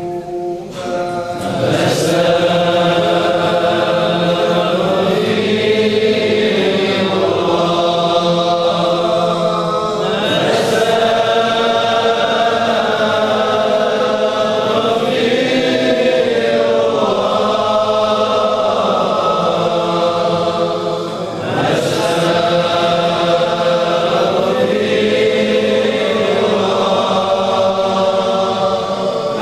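A congregation of men chanting an Islamic devotional chant in unison, with long melodic phrases held and broken every few seconds by a short pause.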